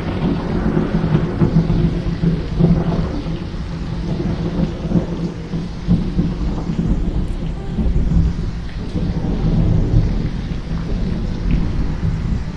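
Thunderstorm: steady heavy rain with continuous rolling thunder, the rumble swelling and easing several times.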